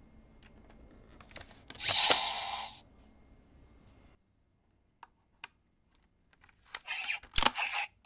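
Hard plastic toy parts being handled: scattered clicks, a short louder noise about two seconds in, and a cluster of clicks ending in one sharp snap near the end as the Drag Visor gauntlet is worked.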